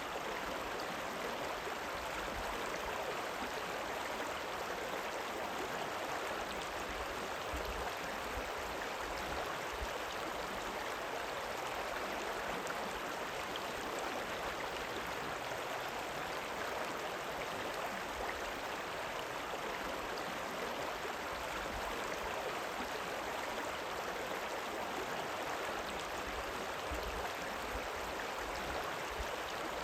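River water rippling and running, a steady, even rush with no breaks.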